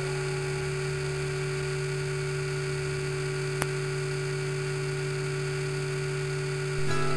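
Align T-Rex 550E electric RC helicopter's motor and rotor whirring steadily, heard from the GoPro mounted on the helicopter. There is a single sharp click about halfway through, and the sound gets louder near the end.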